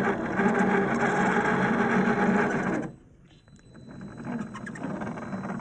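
RC crawler's RC4WD 20T brushed electric motor and geared drivetrain whirring steadily under throttle; it cuts off suddenly about three seconds in as the throttle is released, then comes back quieter near the end.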